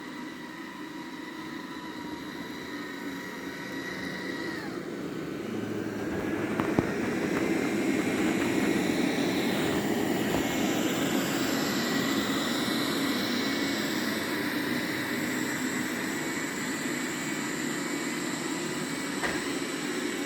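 Roborock Q7 Max robot vacuum running, a steady fan whine over a rushing hum. About four seconds in the whine dips, then it climbs and the sound gets louder from about six seconds on, as the vacuum raises its suction on the carpet. There is a small knock about seven seconds in.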